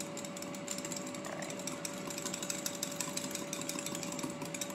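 Small metal whisk beating a sauce in a glass bowl: a fast, steady run of light clicks and scrapes against the glass, over a faint steady hum.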